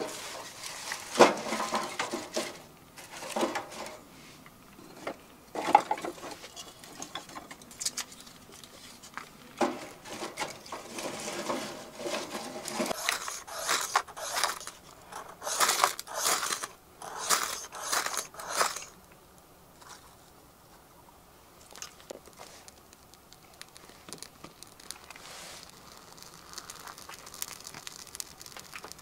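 Rustling and scraping handling noises, then a ferro rod struck hard several times in quick succession about halfway through, showering sparks onto birch bark tinder. Quieter rustling follows as the bark catches.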